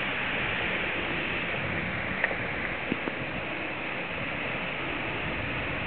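Steady rush of surf on a rocky shore, with a few short sharp clicks a little past two seconds in and again around three seconds.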